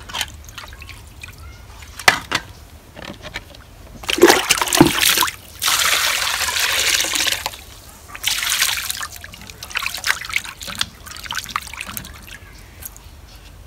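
Water poured from a plastic mug into a steel bowl of cut tilapia pieces, with hands sloshing and rubbing the fish in the water. A splash about four seconds in, a steady pour of about two seconds, then a second shorter pour.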